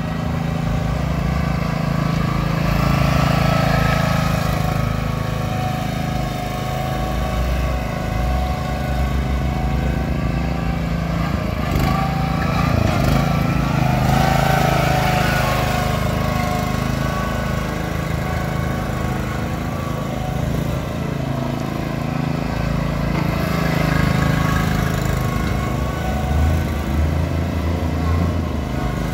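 Small engine of a powered roofing deck cart running steadily as the cart is driven along, getting louder as it passes close by midway.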